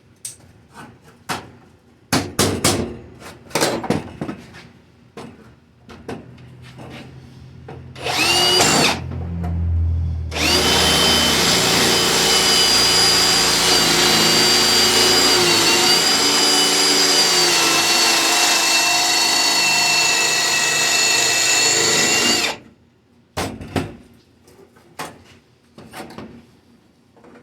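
Knocks and clatter of tools and metal being handled, then an electric power tool runs briefly about eight seconds in and, from about ten seconds, runs steadily with a high whine for about twelve seconds before cutting off suddenly. More knocks follow near the end.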